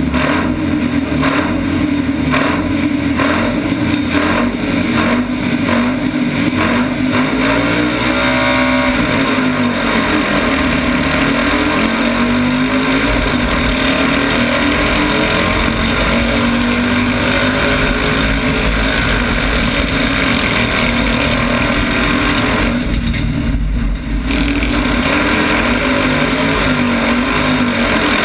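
Citroën 2CV's air-cooled flat-twin engine running hard under racing load, heard from inside the cabin, its pitch rising and falling with throttle and gear changes. The engine eases briefly about 24 seconds in, then pulls again.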